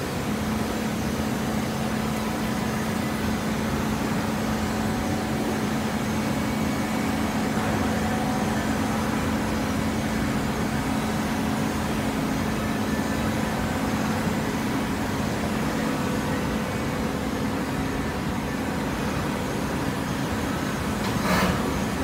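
TCM horizontal hydraulic baler running: a steady machine hum with a low drone from its hydraulic power unit. A short, louder burst of noise comes near the end.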